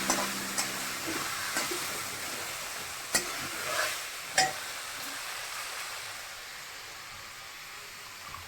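Food sizzling in a hot pan with a steady hiss that slowly dies down. A spatula knocks and scrapes against the pan about six times in the first half.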